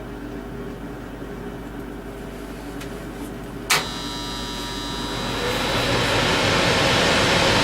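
An electric furnace's newly fitted contactor clicks shut about halfway through as the thermostat calls for heat. The furnace blower then spins up into a steady rush of air that grows louder and levels off near the end. The new contactor is a lot quieter than the loud-humming one it replaced.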